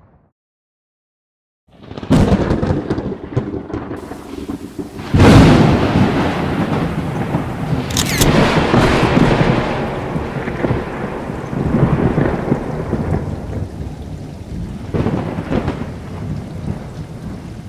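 Close lightning strikes: sharp thunder cracks and long rolling rumble over rain. The sound starts suddenly after a short silence, the loudest crack comes about five seconds in, another sharp crack follows about three seconds later, and further rumbles swell later on.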